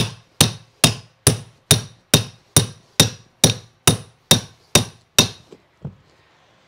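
Hammer blows on a steel carpet tucker, a steady run of about a dozen sharp, ringing strikes at roughly two a second, driving the stair runner tight into the bottom of the step. They end with two lighter taps.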